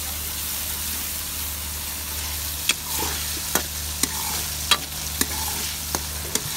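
Chopped onions frying in oil in a metal karahi, a steady sizzle. From a little before halfway in, a spoon stirring them knocks and scrapes against the pan in irregular clicks about every half second.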